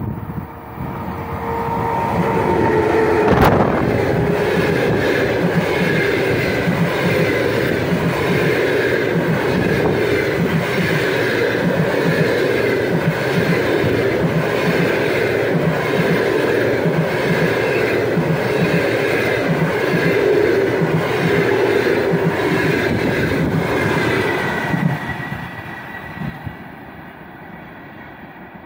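EP1 electric locomotive sounding a steady horn for about the first two seconds, then a sudden thump as it passes close by about three seconds in. Its long train of passenger coaches follows, the wheels clattering regularly over rail joints amid rushing noise, and the sound fades as the train draws away near the end.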